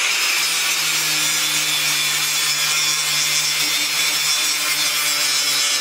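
Bosch angle grinder running steadily with its disc grinding down spot welds on sheet steel, cleaning them up flush before body filler.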